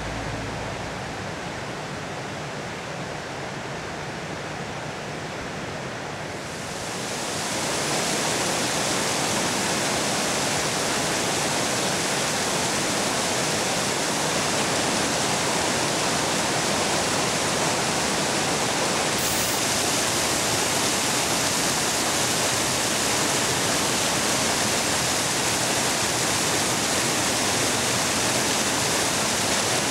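Fast river water rushing over a shallow, stony riffle: a steady rushing noise that grows louder and fuller about seven seconds in.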